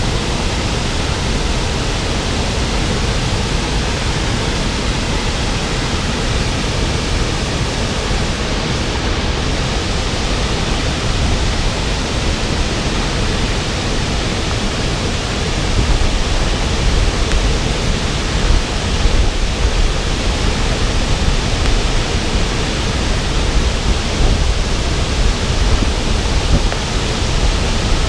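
A waterfall with a 15-metre drop, its water falling in a loud, steady, even rush that grows a little louder and more uneven about halfway through.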